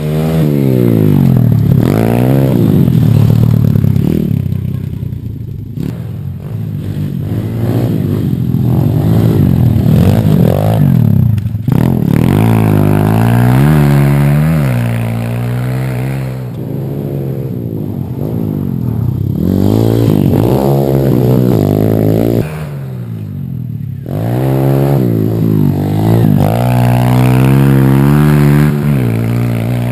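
Pit bike engine revving hard and easing off over and over, its pitch climbing in runs and dropping back between them, with a few short lulls.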